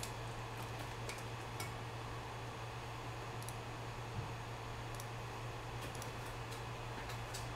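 Faint computer mouse clicks scattered unevenly, about a dozen, over a steady low hum and hiss.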